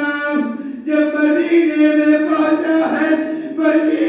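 A male reciter chanting in long held notes, the sung recitation of a Shia majlis, breaking off briefly about half a second in and again near the end.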